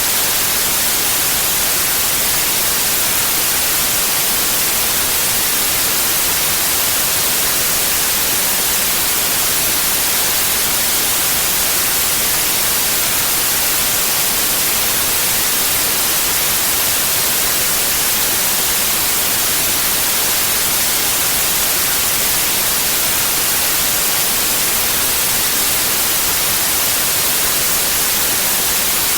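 Synthetic white noise: a steady, even hiss, strongest in the treble, unchanging throughout.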